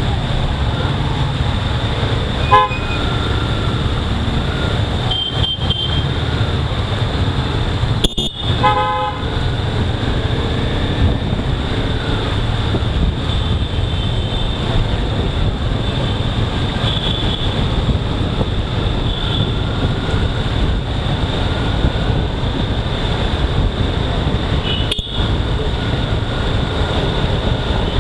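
Motorcycle riding through dense traffic: a steady low rumble of engine and road, with vehicle horns honking over it several times. The loudest honks are a short one about two and a half seconds in and a longer one about eight to nine seconds in, with shorter high beeps scattered later.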